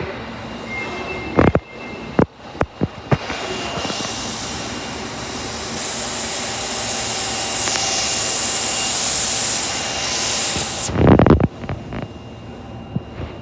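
Tanimachi Line subway car: a thin high tone and a few sharp clicks, then about five seconds of loud high hiss that cuts off suddenly, followed by a heavy thump about eleven seconds in.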